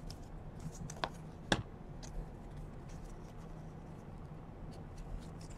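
2017 Donruss baseball cards being flipped through by hand: faint sliding and flicking of card stock, with two small clicks about a second in, half a second apart. A faint low hum runs underneath.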